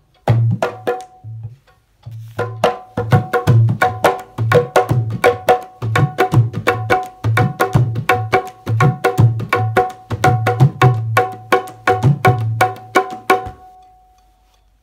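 Tabla and dholak hand drums played together, deep bass strokes under sharp ringing treble strokes. A short phrase stops about a second and a half in, then a steady run of fast strokes goes on for about eleven seconds and ends on one ringing drum note that fades away.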